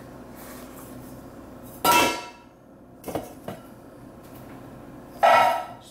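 A bowl clattering twice with a brief ringing: once about two seconds in, and again near the end as it is tossed into the kitchen sink. A couple of small knocks come in between.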